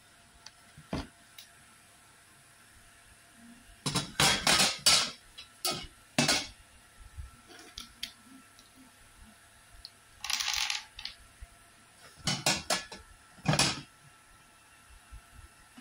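White square steel tube frame pieces of a kitchen rack clattering as they are set down and knock together on a laminated shelf board: sharp metallic clanks in clusters, about four seconds in and again near the end, with a brief scraping sound in between.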